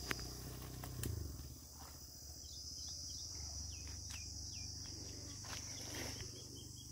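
Steady high-pitched drone of insects, with the rustle and footsteps of someone walking through tall grass and bushes and a few sharp clicks near the start.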